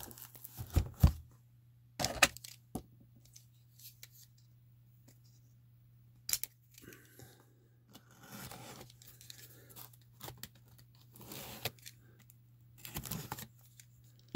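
Tape and cardboard flaps of a wax card box being torn open by hand, in short irregular bursts, with a couple of sharp knocks of the box being handled about a second in.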